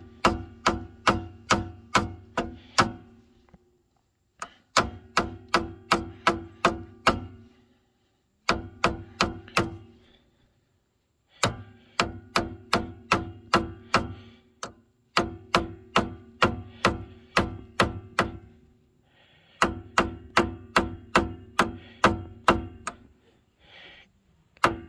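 Pliers tapping against the rusty steel dust cap of a 1990 Dodge Grand Caravan's rear wheel hub, working it loose. The taps come in runs of six to eight, about two or three a second, with short pauses between runs. Each tap is a sharp metal-on-metal strike that rings briefly.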